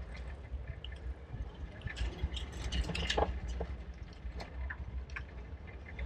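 The sound of riding a bicycle through city streets: a steady low rumble of wind and road noise with many scattered small clicks and rattles.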